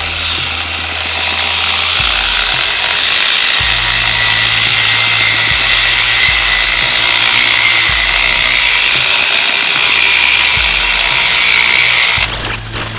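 Kawasaki variable-speed angle grinder running a 50-grit diamond polishing pad over a wet concrete countertop: a steady high whine with a gritty hiss. It stops near the end.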